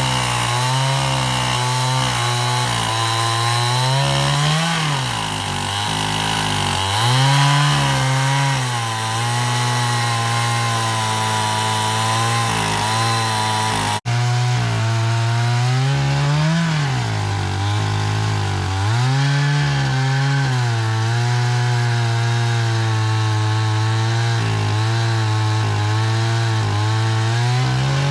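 Husqvarna 395 XP two-stroke chainsaw on a 36-inch bar, ripping a log lengthwise in an Alaskan chainsaw mill. The engine holds a steady note under load, and its pitch rises briefly a few times as the load eases.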